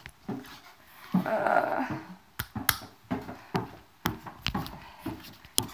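A short muffled sound about a second in, then a handful of sharp, separate clicks or taps spaced irregularly through the next few seconds.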